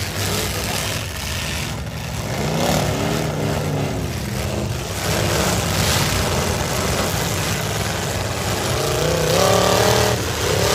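Several V8 demolition derby trucks' engines running and revving, their pitch rising and falling, loudest near the end.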